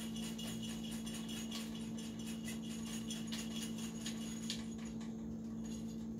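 Liqueur-soaked coffee beans sliding out of an upturned growler bottle and dropping into a fine sieve, an irregular patter of small clicks and rattles, over a steady low hum.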